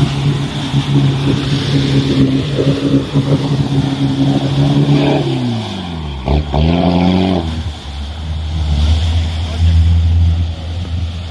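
Off-road 4x4 engine working hard while the vehicle churns through deep mud. The engine hums steadily, then about five seconds in the revs fall sharply and climb again, settling into a lower, steady drone.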